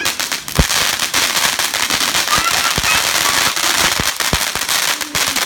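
Ground fountain firework spraying sparks: a steady rushing hiss, dense with fast crackling and a few sharper pops scattered through it.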